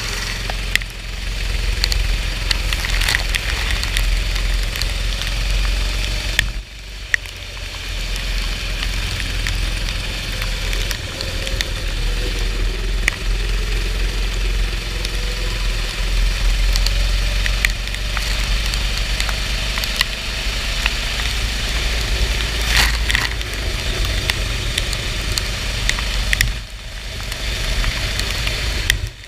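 Racing kart engine running on a wet track, its pitch rising and falling with the throttle over a constant rush of noise and scattered clicks. The engine note drops away briefly twice, about a third of the way in and near the end.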